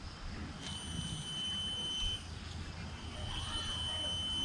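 Rainforest cicadas droning in a steady high-pitched tone, two calls of about a second and a half each, the second starting about three seconds in, over a low rumble of wind on the microphone.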